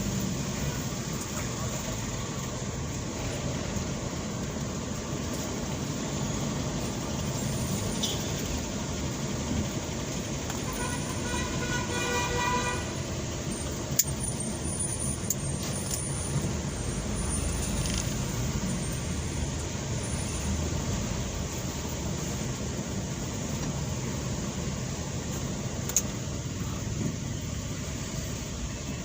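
Steady low rumble of vehicle engines in road traffic, with a vehicle horn sounding for about two seconds near the middle and a couple of sharp clicks.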